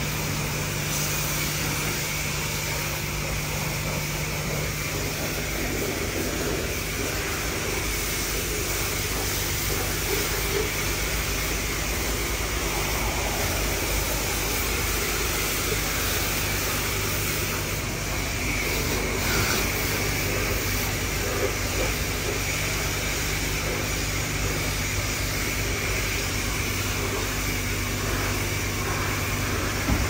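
Steady mechanical hum with an even hiss over it, holding at one level throughout.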